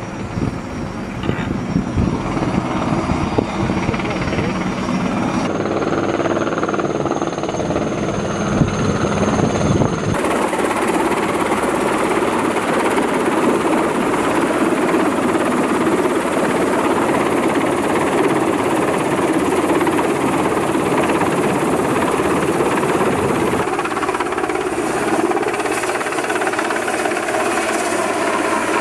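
Sea King helicopter hovering close overhead: the dense, rapid chop of its main rotor mixed with engine whine. The sound shifts suddenly a few times, at about five, ten and twenty-four seconds in.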